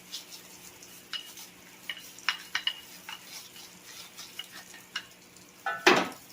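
Metal engine parts being handled, giving scattered light clicks and clinks, then a louder clatter near the end.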